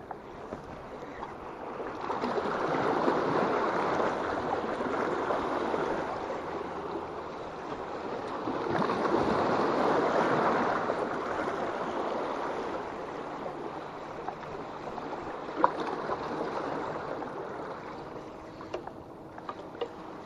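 Sea water washing and lapping, swelling twice and then easing off, with a single sharp click about three-quarters of the way through.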